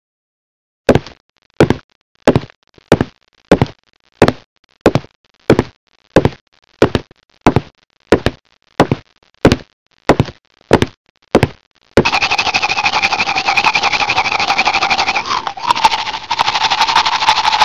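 Heavy footstep thumps, evenly paced at about one every two-thirds of a second, for a figure walking. They stop about twelve seconds in, and a steady hissing noise with a high held tone takes over; the tone drops lower near the end.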